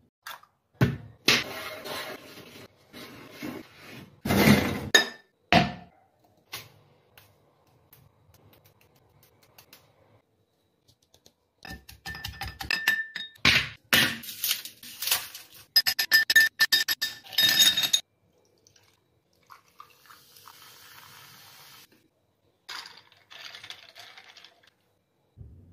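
Glassware sounds of a mojito being made by hand. Sharp knocks and clinks come in the glass, and a muddler grinds mint in a glass tumbler with rapid clinks and ringing of the glass. A soft hiss comes later, and near the end a spoon stirs the drink against the glass.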